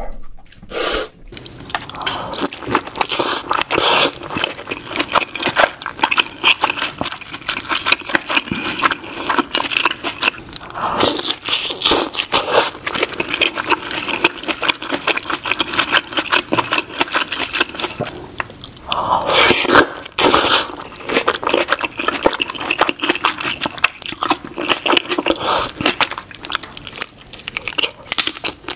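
Close-miked eating of king crab and saucy seafood boil: continuous wet chewing, biting and crackling of crab meat and shell, with a louder burst about two thirds of the way in.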